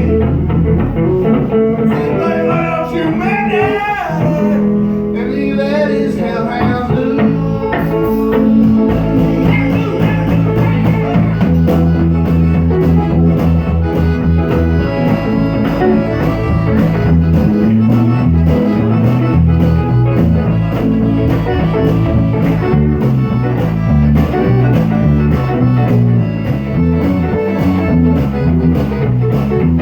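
Live music led by guitar, with a steady bass line and a voice or lead line bending in pitch in the first few seconds.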